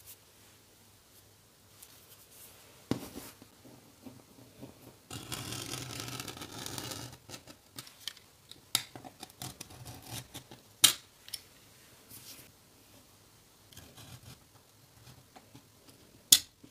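Utility knife cutting leather along a steel ruler: a scraping stretch of about two seconds in the middle, with several sharp clicks and taps of the knife and ruler, the loudest near the end.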